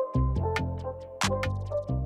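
Background music with a steady beat: deep bass notes, sustained melody notes and quick, even ticking percussion.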